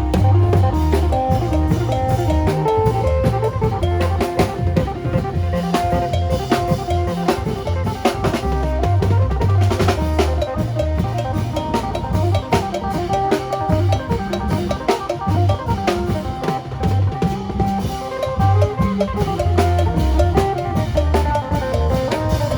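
Lively Isan lam phloen music: an amplified phin lute plays short repeated melody notes over a drum kit with bass drum and snare.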